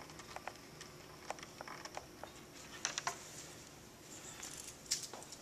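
Faint scattered clicks and taps of a VGA cable plug and cord being handled as it is seated and its thumbscrews are tightened on a document camera, with a few clicks close together about three seconds in and again near the end.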